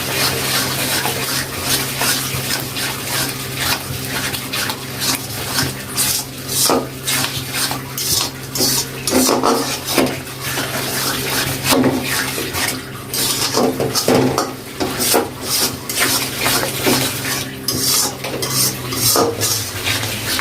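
A spatula scraping and clinking against a kadai in quick, irregular strokes as a spice paste with added yogurt is stirred and cooked down, over a steady low hum.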